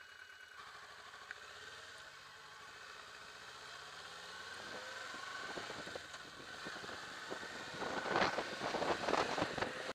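Kawasaki Versys motorcycle pulling away from a stop, its engine revs rising in pitch as it accelerates. Wind buffeting on the bike-mounted camera's microphone grows loud over the last two seconds.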